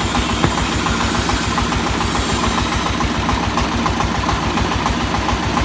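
Well-drilling rig's engine running steadily, with a fast, even pulse of about nine to ten beats a second.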